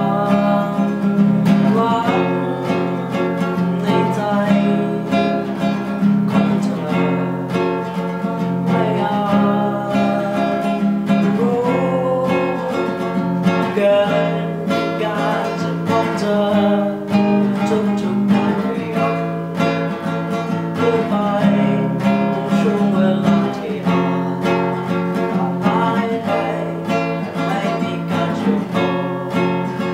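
Acoustic guitar strummed and picked in a steady accompaniment while a man sings a Thai pop song.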